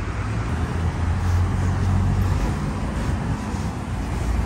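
Road traffic: a steady low engine hum from passing vehicles, strongest in the middle, over general street noise.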